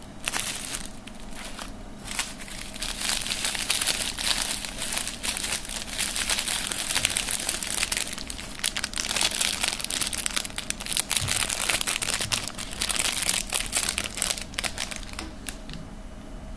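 Packaging crinkling and rustling as it is handled and unwrapped, a dense, continuous crackle that dies down near the end.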